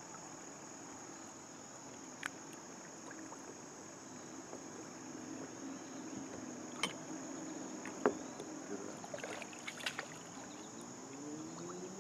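A kayak paddle dipping into calm creek water, with a few sharp knocks of the paddle or gear against the plastic hull. A steady high insect drone runs underneath throughout.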